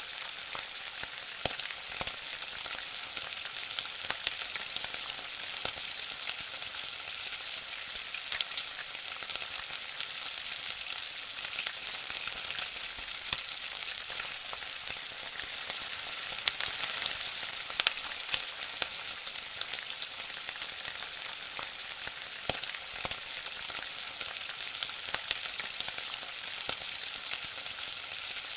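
Masala, onion and potato cubes frying in oil in a kadhai, with a steady sizzle. Scattered clicks and scrapes come from a steel spatula stirring against the pan.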